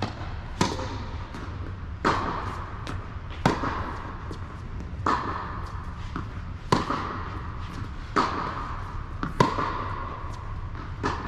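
A tennis rally: a ball struck back and forth with Yonex rackets and bouncing on a hard court, a sharp pop about every second and a half. Each pop is followed by a short echo from the enclosed hall.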